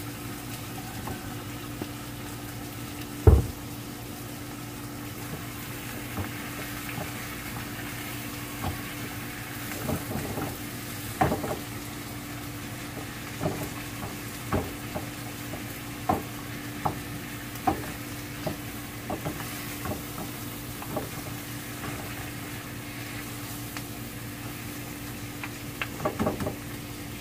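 Beef ribs and spice paste sizzling in a pan while being stirred, with a utensil clicking and scraping against the pan every second or so over a steady low hum. A single heavy thump about three seconds in.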